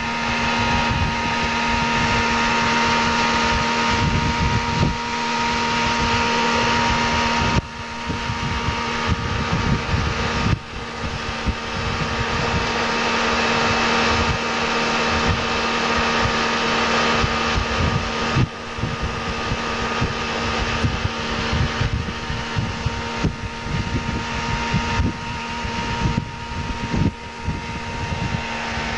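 Tow boat's outboard motor running at speed, a steady drone, with wind buffeting the microphone. The sound breaks off and resumes abruptly three times, about a third, halfway and two-thirds of the way through.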